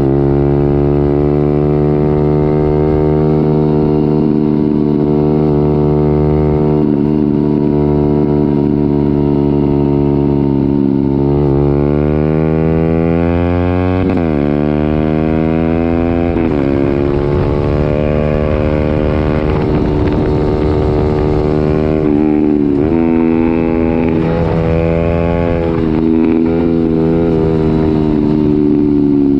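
Honda CB125R's single-cylinder 125 cc four-stroke engine running through a full IXRACE M9 exhaust with the baffles removed, under way. It holds a steady cruising note for about ten seconds, then accelerates through the gears, the revs climbing and dropping at each shift, with more shifts later and the revs falling near the end.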